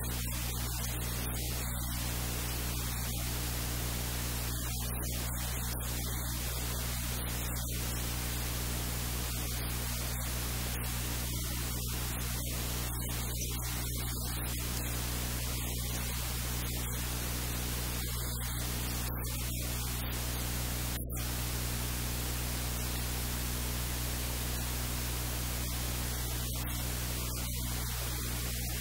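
Steady static-like hiss with a low electrical hum underneath, unchanging throughout.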